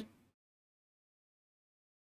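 Near silence: dead air with no room tone.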